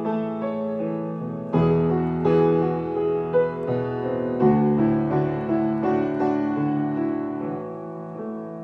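Piano playing sustained chords, a new chord struck every couple of seconds, with no singing.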